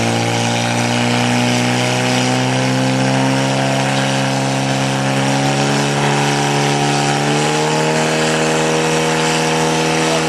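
Portable fire pump's engine running flat out at a steady high pitch, pumping water through the hoses to the two jets; the pitch steps up a little about seven seconds in.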